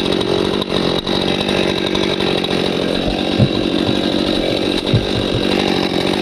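Stihl MS261 C-M two-stroke chainsaw running steadily at high revs, cutting through a fallen log, with two brief dull knocks in the middle.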